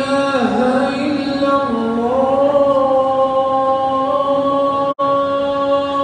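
A single man's voice chanting Islamic recitation across the mosque, holding long notes with slow pitch bends. The sound cuts out for an instant about five seconds in.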